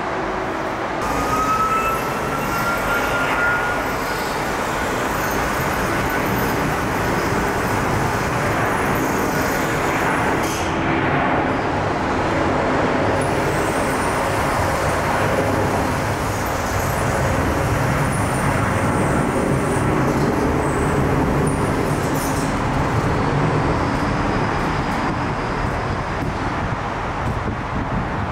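Twin-engine Boeing 757 freighter at takeoff thrust: a loud, steady jet roar through the takeoff roll and lift-off, with a faint rising whine in the first few seconds.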